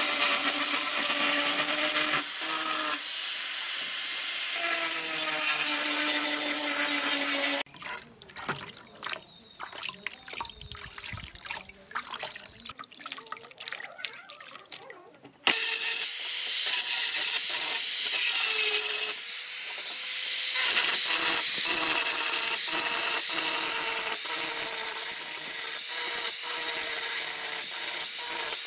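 Electric angle grinder with an abrasive disc grinding rust off the steel blade and tang of an old grass-cutting knife: a steady whine with a grinding hiss. It stops about 8 seconds in for a quieter stretch of small irregular knocks and splashes around the wet blade, and starts grinding again about 15 seconds in.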